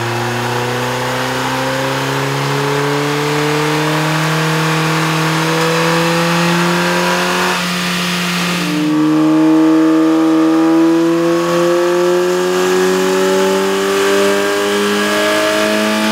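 Ford Focus 2.0L PZEV four-cylinder engine under load on a chassis dynamometer, its pitch rising steadily through a long pull. About eight seconds in it drops back and starts a second rising pull: the first pull is with the stock intake, the second with a K&N cold air intake fitted.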